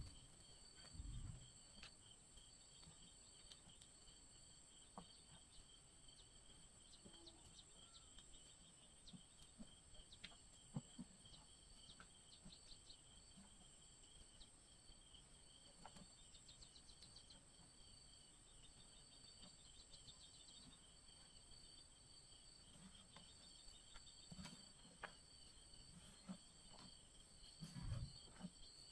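Faint, steady chorus of insects trilling at several high pitches, with a few soft knocks now and then.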